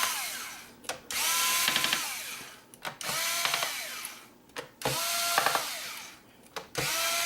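Small electric screwdriver backing out screws one after another: short runs of motor whine that rise in pitch as each starts and fade out. There are about five runs, spaced roughly every two seconds.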